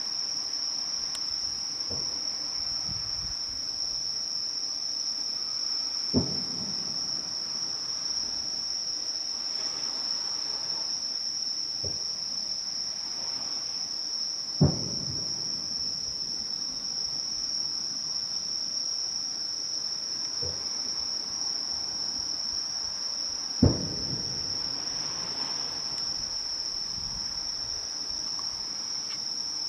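Distant aerial fireworks shells bursting: three loud, dull booms about eight or nine seconds apart, with a few fainter thuds between them. Under them runs a steady, high-pitched insect chorus.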